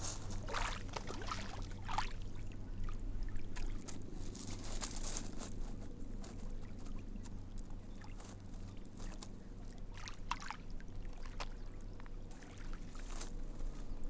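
Lake water lapping and splashing irregularly at the shore, over a steady low hum.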